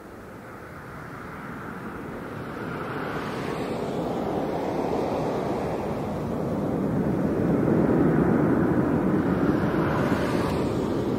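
Jet engine noise from an Airbus A321 on takeoff: a broad rushing rumble that swells steadily louder and peaks about two-thirds of the way through.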